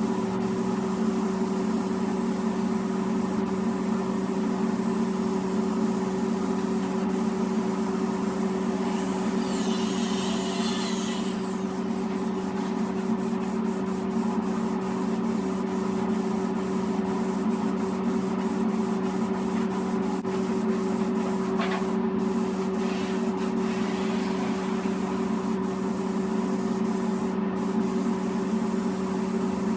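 A machine hums steadily. About nine seconds in, a gravity-feed spray gun hisses for about two seconds as it sprays Raptor bed liner at 45 psi.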